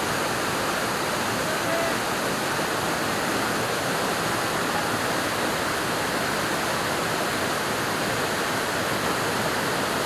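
Waterfall pouring down a steep rock face: a steady, even rush of falling water.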